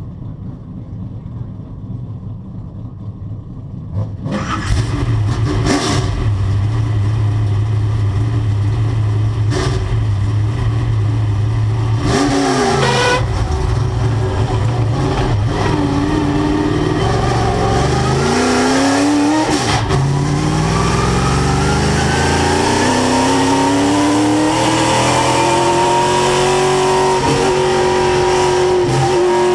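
CRA Sportsman stock car's V8 engine, heard from inside the cockpit. It gets much louder about four seconds in and is revved up and down a few times. From about twenty seconds in, the pitch rises steadily as the car pulls away and accelerates.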